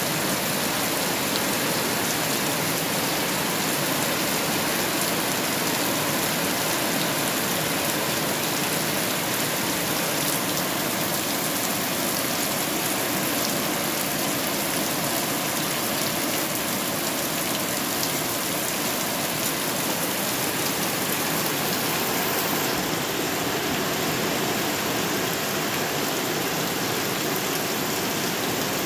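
Steady rain falling on leaves and waterlogged, puddled ground: an even, unbroken hiss of rain.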